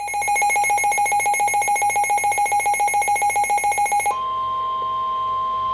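Emergency weather alert tones from a weather radio: a rapidly pulsing electronic beep, about eight pulses a second, that switches about four seconds in to a steady single tone. The steady tone is the NOAA Weather Radio warning alarm tone that comes before a severe thunderstorm warning is read.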